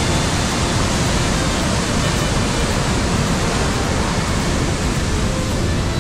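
Waterfall: whitewater rushing steadily down a rocky gorge, a dense, even noise.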